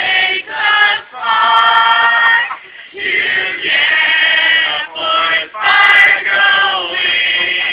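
A mixed group of young male and female voices singing a song together unaccompanied, in held notes broken by short pauses between phrases.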